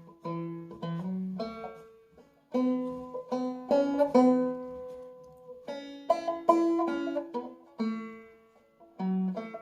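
Five-string banjo in standard G tuning, capoed at the second fret, played clawhammer style: the tune's melody picked out slowly in short phrases of ringing plucked notes, with brief pauses about two seconds in and again around the middle.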